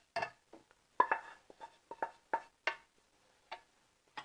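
Wooden spatula scraping and knocking against a nonstick frying pan as the last of a cooked dish is scraped out onto a plate: about a dozen short scrapes and taps, quick in the first three seconds, then a couple of sparse ones.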